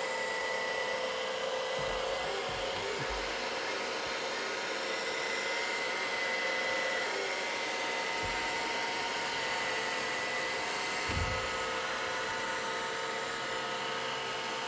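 Hoover robot vacuum cleaner running on carpet: a steady hiss from its suction motor with thin constant tones. A few short low thumps come through, the loudest about eleven seconds in.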